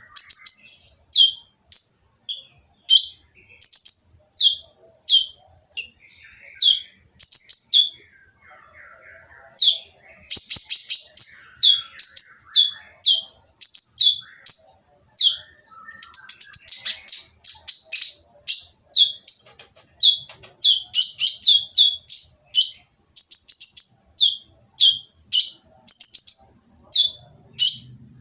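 Kolibri ninja, a sunbird, calling harshly and without pause: short, high notes that drop sharply in pitch, about two a second, broken by faster rattling runs.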